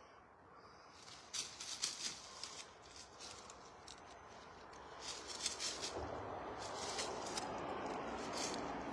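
Faint irregular crackling clicks, with a steady rushing noise that grows louder from about six seconds in.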